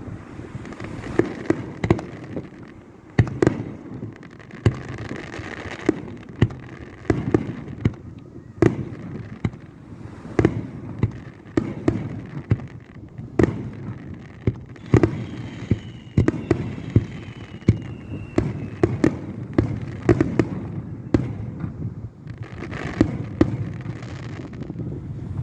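Aerial fireworks bursting one after another: sharp bangs, often several a second, each trailing off in a rolling boom, over a steady wash of background noise.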